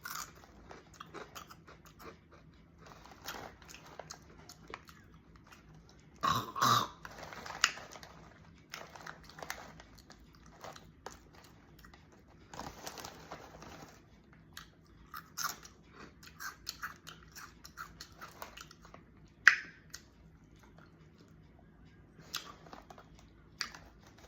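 A person chewing crunchy fried snack sticks close to the microphone: a run of small crisp crunches with a few louder bites scattered through.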